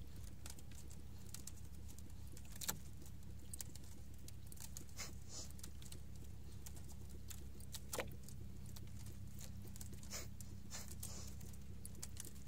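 Small splashes and ticks of water lapping against an outrigger fishing boat's hull, scattered and irregular, over a steady low hum.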